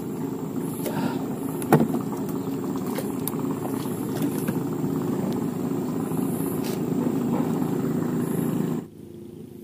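Engine running at a steady low drone, with a few sharp knocks and clicks over it, the loudest about two seconds in. The drone cuts off suddenly near the end.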